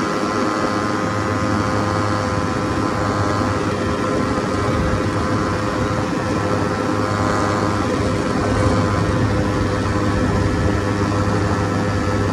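Ultralight trike's pusher engine and propeller running steadily at takeoff power through liftoff and climb-out, a constant drone with a strong low hum and wind rush.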